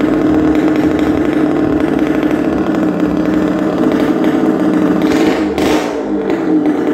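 Motorcycle engines running at steady high revs inside a wooden wall-of-death drum, as the bikes circle the vertical wall. About five seconds in there is a brief hiss-like burst, and the engine pitch dips slightly just after it.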